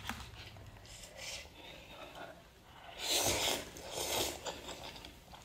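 A person slurping instant noodles from a paper cup with chopsticks: soft clicks and rustles, then two loud hissing slurps about three and four seconds in.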